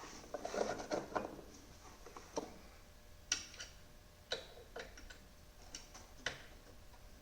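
Handling noise, then a string of sharp, separate clicks and taps about once a second as hands and tools work the spin bike's freshly threaded left pedal and crank.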